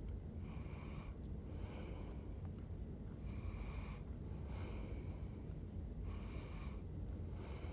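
A man breathing through his nose close to the microphone, soft even in-and-out hisses at a slow regular pace, over a low steady hum.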